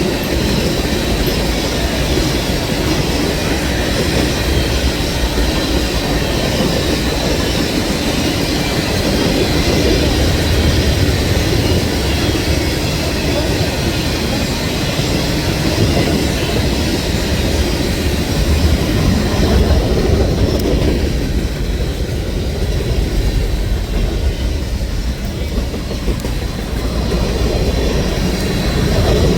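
Railroad train rolling past, a steady rumble of cars on the track that eases slightly about two-thirds of the way through.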